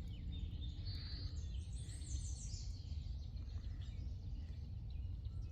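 A small bird singing a brief run of high, quick notes about a second in, over a steady low rumble.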